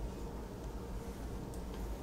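Quiet room tone with a steady low hum, and two faint light ticks about one and a half seconds in, from the metal slat runner being handled against the bed's side beam.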